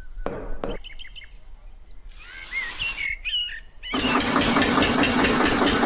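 A small engine starts up about four seconds in and runs with a rapid, rhythmic knocking. Birds chirp before it.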